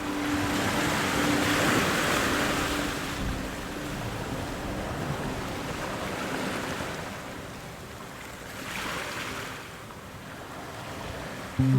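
Sea waves washing in, two swells of surf about two seconds in and again near nine seconds.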